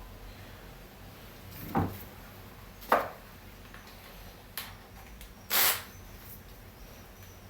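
Scattered knocks and clatter of hand tools and clutch parts being handled during reassembly: several separate sharp knocks, and a longer scraping rasp just past the middle.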